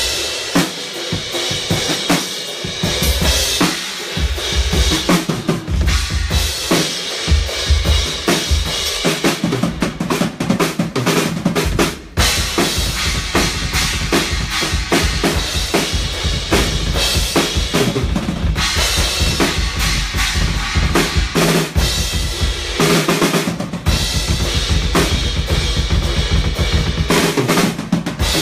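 Full drum kit played hard at a rock band's sound check, with a heavy bass drum under snare and cymbals, and a brief break about twelve seconds in.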